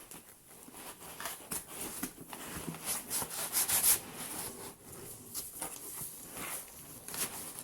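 Packaging being handled and pulled out of a box: irregular rubbing and scraping with small knocks, busiest about three to four seconds in.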